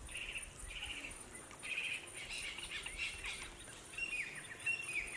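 Birds calling: short chirping phrases, then from about four seconds in a run of quick falling notes repeated several times a second. A faint steady high tone runs underneath.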